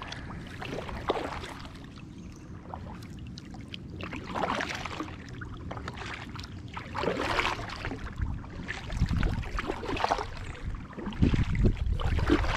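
Kayak paddle blades dipping and splashing in the water, a stroke about every three seconds, with a louder low rumble near the end.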